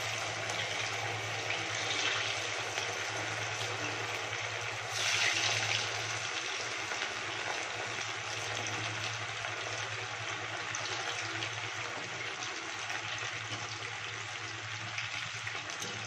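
Battered cauliflower florets deep-frying in hot oil in a kadai: a steady sizzle of bubbling oil that swells louder about five seconds in.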